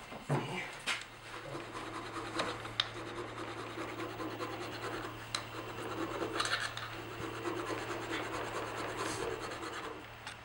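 Hand tool scraping and rubbing against a metal hinge fitting in a door frame, with irregular clicks and knocks, a louder clatter right at the start. A steady low hum runs underneath.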